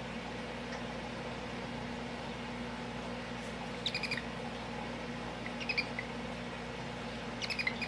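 Small animal giving short, high chirping squeaks in three brief clusters, about four seconds in, near six seconds and at the end, over a steady low hum.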